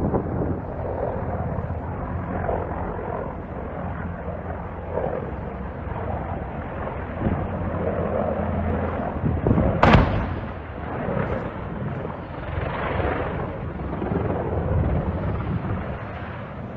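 Helicopter flying low overhead, its rotor and engine making a steady hum. About ten seconds in there is one sharp, loud bang.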